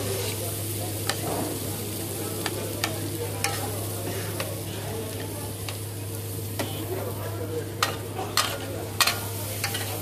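Chicken chaap sizzling on a large flat iron griddle while a long metal spatula scrapes across the hot surface and scoops up the meat. Sharp clanks of the spatula on the iron come every second or so, more of them near the end, over a steady low hum.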